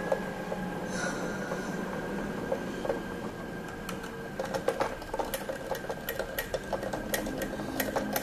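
Small irregular clicks and ticks of a precision screwdriver and metal screw working in a fitting on a plastic RC boat hull, growing busier about halfway through, over a steady hum.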